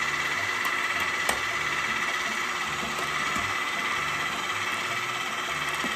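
KitchenAid electric hand mixer running steadily on high, its beaters whipping heavy cream in a ceramic bowl as the cream thickens. A single brief click about a second in.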